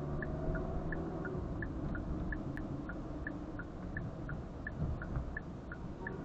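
Car turn-signal indicator ticking steadily, about three ticks a second, over the low rumble of engine and road noise inside the car's cabin.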